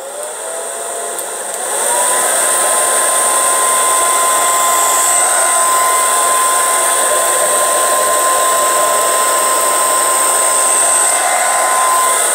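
Handheld hair dryer switched on, its motor whine rising over the first two seconds and then running steadily with a rush of air while it blow-dries hair straight over a brush.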